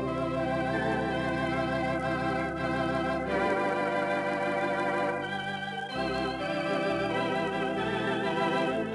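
Theatre organ playing sustained chords with a wavering tremulant. A low bass note is held at first, and about six seconds in the bass moves to shorter, changing notes.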